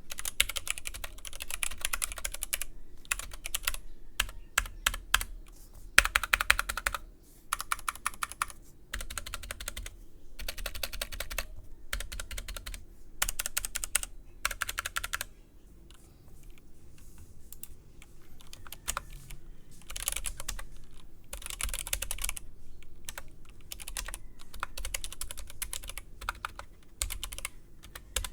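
Typing on an Anne Pro 2 60% mechanical keyboard: fast runs of key clicks in bursts of a second or more, with short pauses between, part of a sound test of the keyboard with and without O-rings fitted under the keycaps.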